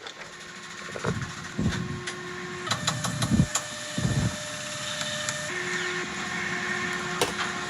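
Small electric motor of a homemade chisel grinder running with a steady hum that steps up in pitch about a third of the way in and drops back about two-thirds in, with several dull knocks and sharp clicks from handling the work.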